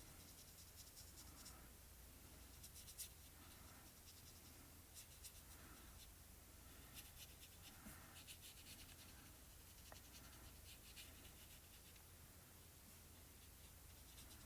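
Near silence with faint, scattered scratching and rubbing strokes of craft tools on paper, over a steady low room hum.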